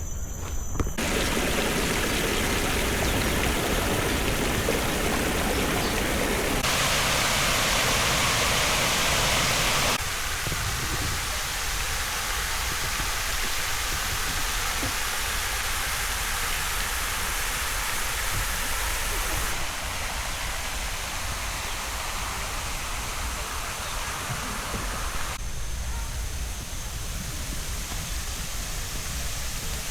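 Steady rush of running water, like a stream or small waterfall, with no rhythm or pitch. Its loudness and tone change abruptly several times, louder and brighter between about 7 and 10 seconds in.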